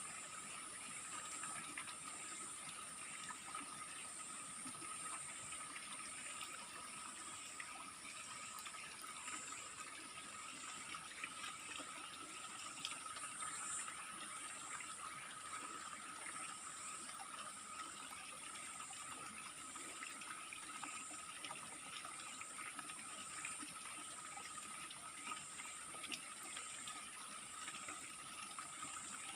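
Steady rush of running water from a waterfall stream. A high-pitched drone wavering about once a second and a steady mid-pitched tone sit above it throughout.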